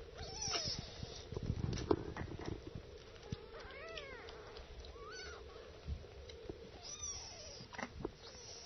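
Young kittens mewing: a few short, thin cries rising and falling in pitch, among small rustles and knocks.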